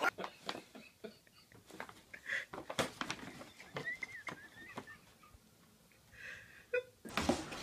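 Paper gift bag rustling and scraping on carpet as a cat struggles with its head stuck inside it: scattered short scuffs and crinkles with brief pauses. A steadier hiss comes in near the end.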